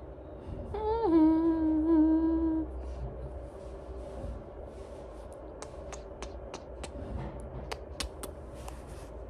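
A voice hums one note, dipping at the start and then held for about two seconds. Later comes a string of small lip smacks, about two a second, from kisses on a dog's head.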